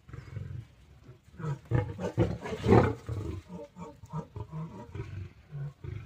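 Lion roaring: calls build to a loudest one about three seconds in, then break into a string of shorter grunts that taper off toward the end.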